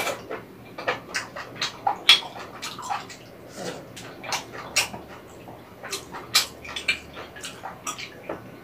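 Close-up eating sounds of soupy rabokki (ramen noodles and rice cakes in broth): repeated short slurps, wet chewing and lip smacks, several a second.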